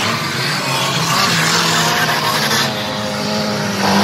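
Several stock car engines racing together, their notes overlapping; it grows louder near the end as a car comes closer.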